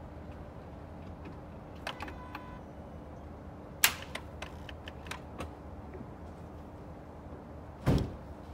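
Scattered clicks and knocks of things being handled over a steady low hum: a short rattle about two seconds in, a sharp click about four seconds in, a few lighter clicks, then a heavier thump near the end.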